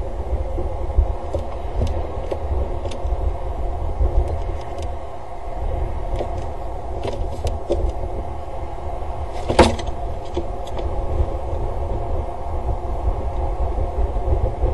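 Steady low rumble of wind and rain on an outdoor camera's microphone, with scattered light taps and one louder knock about ten seconds in.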